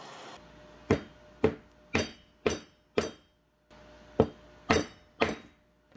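Heat gun blower switching off just after the start, then eight sharp knocks, five in a row about two a second, a short pause, then three more.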